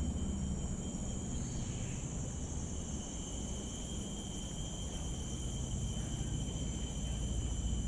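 Steady chorus of forest insects, with thin, unbroken high-pitched tones, over a constant low rumble.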